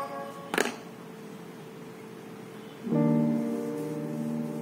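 Music with piano-like chords played through a small Mi 5 W Bluetooth speaker. There is one click about half a second in, then a quieter gap, and sustained chords come back in just before three seconds in.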